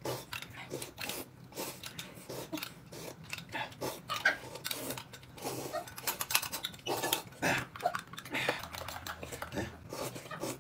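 Close-up eating sounds: irregular chewing, lip-smacking and slurping, with scattered small clicks.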